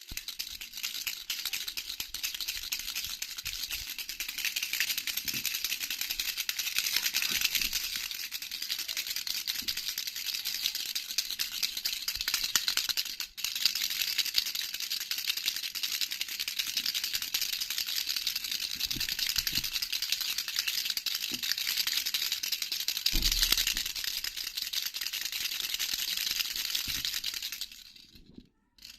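Baby's jhunjhuna, a hand rattle with small bells, shaken continuously in a fast, bright jingling clatter. It breaks off for an instant about halfway through and dies away shortly before the end.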